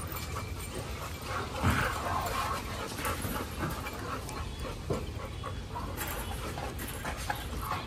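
A pack of dogs whining softly while they wait to be fed.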